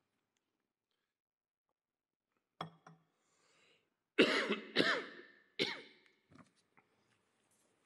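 A man coughing: a short first cough about two and a half seconds in, then three hard coughs in quick succession, trailing off into a few faint throat sounds.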